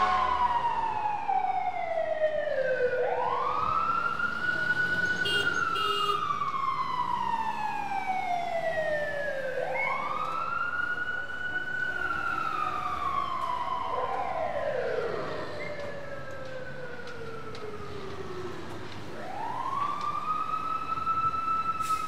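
Fire truck wail siren. Its pitch slides slowly down over several seconds and sweeps quickly back up, repeating about three times. A second siren overlaps near the middle, and the sound dips in loudness before climbing again near the end.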